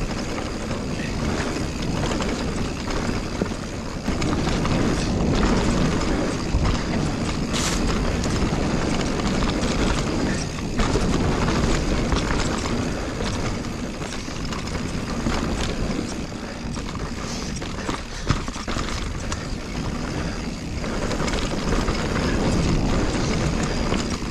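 Full-suspension mountain bike (a Giant Reign 29) riding fast down a dirt trail. Wind rushes over a chest-mounted action-camera microphone, the tyres rumble and the bike rattles, with an occasional sharp clunk from a bump, one near the middle of the run.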